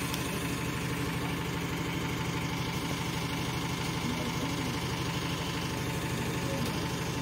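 PAZ 320414-05 bus's diesel engine idling steadily with a low, even hum while the bus stands with its door open.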